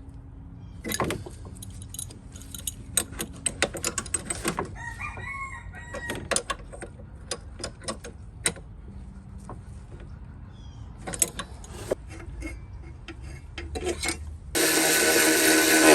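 Scattered light clicks and clatter of hand tools and parts as a fuel filter's line fittings are tightened and a cover is refitted. Near the end comes a loud, harsh call about a second and a half long.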